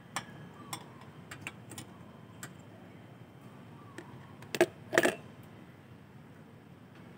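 Small metal objects clicking and clinking during work on a fuel system, with two louder metallic knocks about four and a half and five seconds in.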